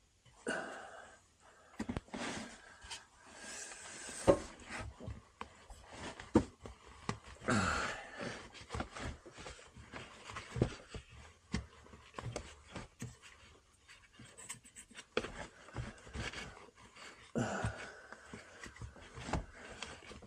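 A person breathing hard in repeated heavy breaths while working, mixed with scattered small clicks, knocks and scrapes of hand tools on metal.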